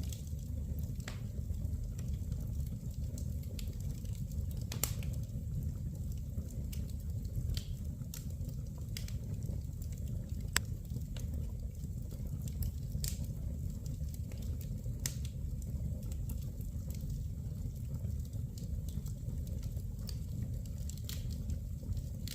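Wood fire burning in a fireplace: a steady low rumble with irregular sharp crackles and pops, a couple of them louder.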